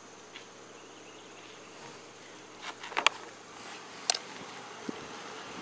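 Steady outdoor background with a faint, even insect drone, broken by two short, sharp clicks about three and four seconds in.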